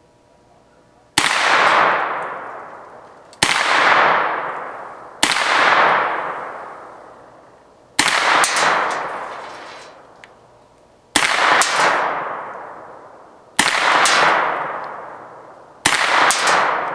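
Seven single shots from a 9mm carbine, spaced two to three seconds apart. Each is followed by a long fading ring, often with a clang or two from the hardened steel spinning target.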